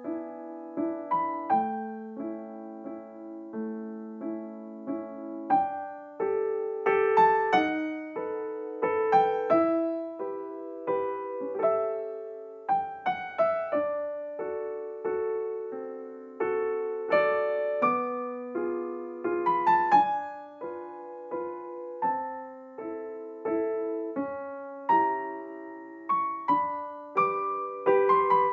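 Background piano music: a slow, gentle melody of single notes over chords, each note fading after it is struck.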